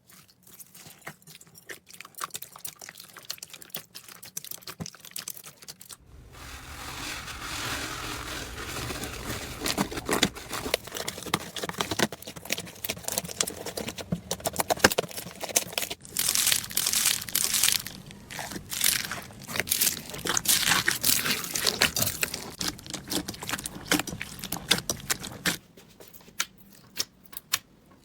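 Slime being handled and squeezed, with many fast crackles and pops typical of crunchy slime. The sound changes abruptly about six seconds in and again near the end, as one slime clip gives way to another.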